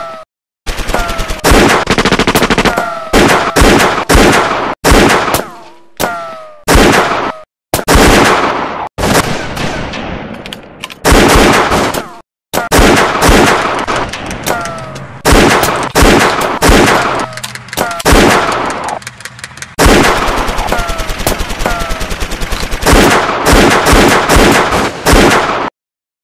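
Automatic gunfire sound effects: long, rapid machine-gun bursts spliced together, with abrupt cuts to dead silence between several of them.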